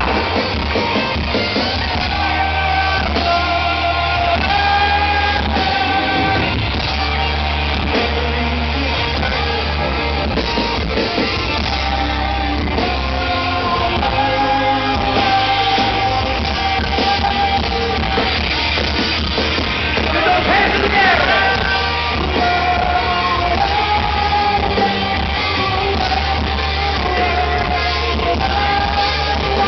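Live rock band playing with guitars and a male lead vocal singing a melody, heard loud and bass-heavy from within the arena crowd.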